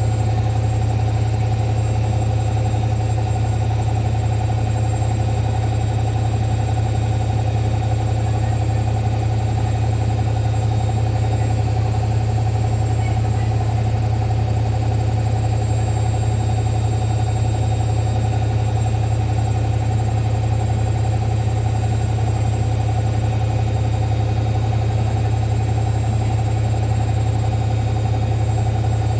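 Hoover washing machine on its spin cycle, the drum spinning at a steady speed: a loud, even hum that holds one constant pitch.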